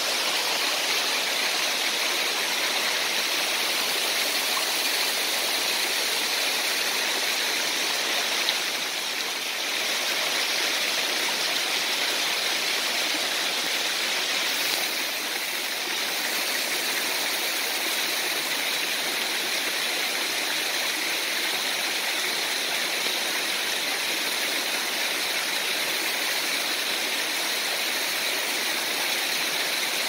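Waterfall pouring down a rock face into a pool, a steady rushing of water with no break.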